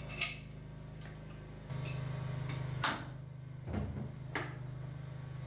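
An engine idling steadily, a little louder from about two seconds in, with three sharp clacks and one dull low knock over it.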